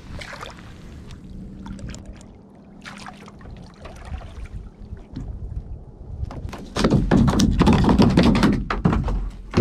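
Water splashing and sloshing around a sit-on kayak under paddle strokes, with knocks against the hull. It is quiet and scattered at first, then much louder and busier for the last few seconds.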